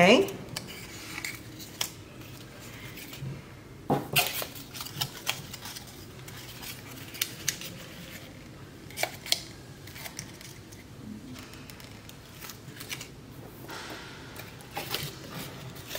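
Light taps, clicks and rustles of painted egg-carton butterflies and pipe cleaners being handled on a tabletop as the pipe cleaners are wrapped and twisted on as bodies. The taps come irregularly, with the loudest cluster about four seconds in.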